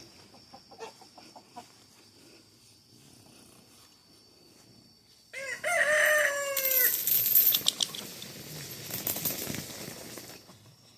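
A rooster crows once, about five seconds in: one loud call that falls in pitch at the end. Softer scattered farmyard fowl sounds follow it, after a quiet start.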